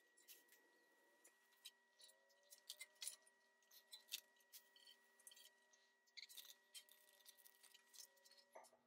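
Near silence: faint, irregular light clicks over a faint steady high whine.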